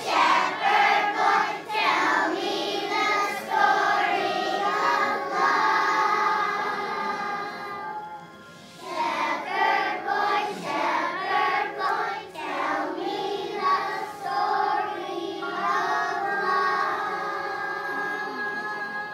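Children's choir of young kids singing together, phrase after phrase, with a short pause about eight seconds in before the singing picks up again.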